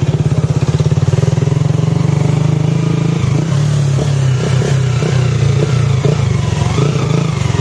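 Motorcycle engine running while riding, an even rapid pulsing of its firing that turns uneven about three seconds in.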